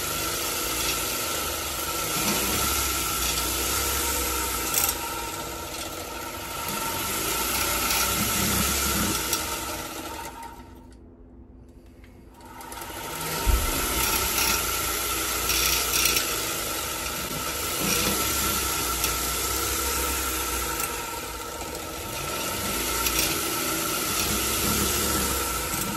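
Motor-driven homemade centrifugal gear shifter spinning fast on a bent shaft, a steady mechanical whir with rubbing and rattling from the wobble. It runs down about ten seconds in and spins up again with a knock about three seconds later.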